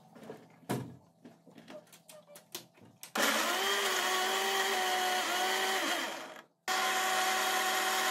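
Black+Decker countertop blender puréeing chunks of tomato, onion and garlic. A few light clicks and knocks as the lid is pressed on, then the motor starts about three seconds in and runs steadily, cuts out briefly a little after six seconds, and starts again.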